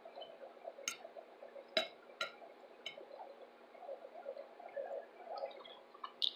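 Quiet eating of fried shrimp: faint chewing and mouth sounds, with a few light clicks of a metal fork against the plate.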